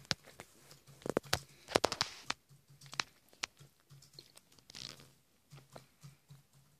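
Cat chewing food with sharp, wet crunches, a quick run of them about one to two and a half seconds in, then sparser bites.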